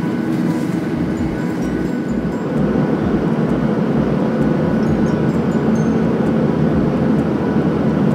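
Steady rush of airliner cabin noise from the jet engines and airflow, stepping up a little about two and a half seconds in.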